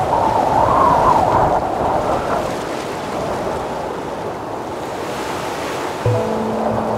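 Sea waves washing on the shore, mixed with wind, a steady rush that swells in the first couple of seconds. About six seconds in, music begins with a low thump and a held note.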